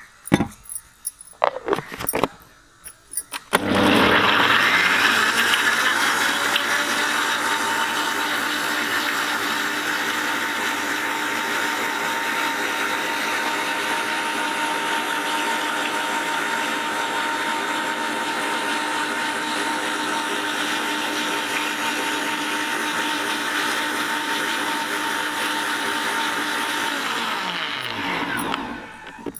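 Electric mixer grinder blending strawberries, sugar and water into a puree. A few clicks and knocks come first as the jar and lid are set, then the motor starts about three and a half seconds in, runs steadily, and winds down near the end.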